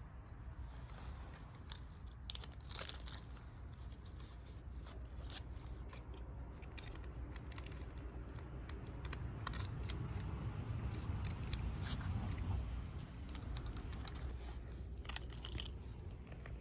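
A cat eating, with scattered small crunches and clicks of chewing over a low, steady rumble that swells in the middle.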